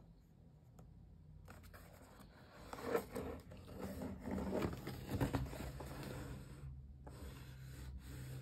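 Cardboard box handled and turned over in the hands, with rustling and scraping of the cardboard and small knocks, loudest about three and five seconds in.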